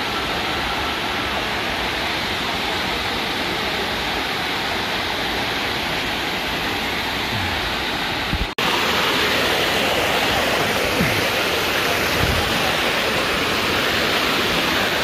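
Water of Dunn's River Falls rushing steadily down terraced limestone cascades. After a brief dropout about eight and a half seconds in, the rushing is louder and closer.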